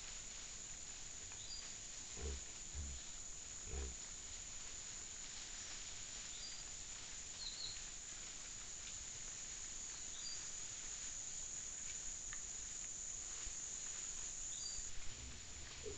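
Peccaries grunting low, a few short grunts in the first four seconds, over a steady high-pitched hum and scattered brief high chirps; a short knock near the end.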